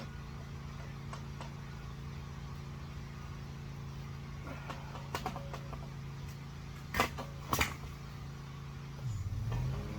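A steady low mechanical hum from a running motor, with a few light knocks and two sharp knocks about seven seconds in; the hum's pitch shifts near the end.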